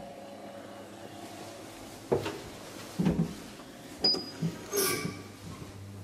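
Elevator car's door mechanism clunking and clicking several times, with a brief high beep about four seconds in and a short rattle just before five seconds.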